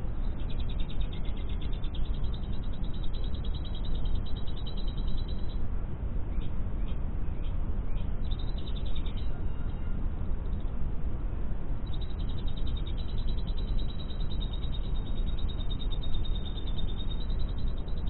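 Lovebird song: rapid, high chattering trills in long runs, breaking off after about five seconds, returning briefly near the middle and again from about two-thirds in, over a steady low rumble.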